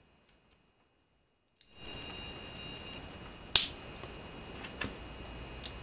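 LEGO plastic bricks being pressed together by hand: one sharp snap about halfway through, then two fainter clicks near the end, over a faint steady hiss that comes in after a second and a half of near silence.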